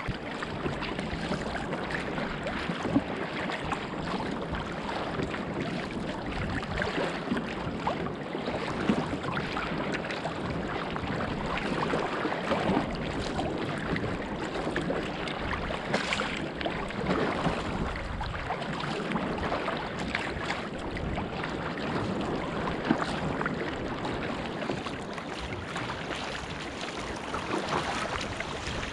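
Sea kayak paddled through choppy sea: water rushing and slapping against the hull, with the paddle blades splashing in and out at each stroke and wind buffeting the microphone.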